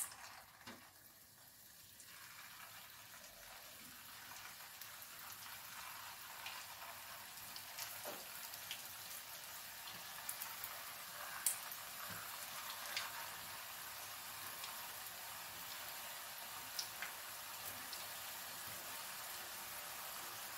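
Hot oil sizzling as rice-flour kaliyadakka balls are dropped in one by one and fry. The sizzle is faint and steady and grows louder as more balls go in, with occasional sharp pops.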